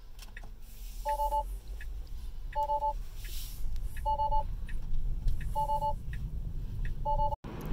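Tesla Model 3's trunk-open warning chime beeping five times, a short tone every second and a half, because the car is being driven with the trunk ajar. Under it is the low rumble of the car rolling slowly.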